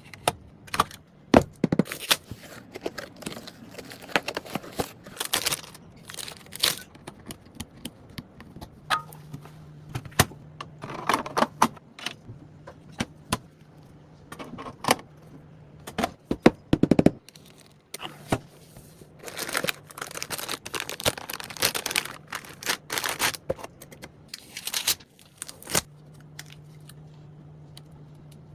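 Irregular clicks, taps and scrapes of computer parts being handled and fitted together during a PC build, with a faint low hum that comes and goes.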